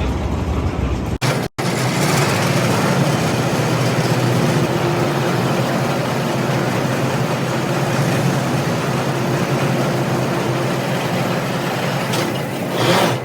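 Borewell drilling rig running steadily with a loud mechanical din. The sound drops out briefly about a second in, and there are louder surges near the end.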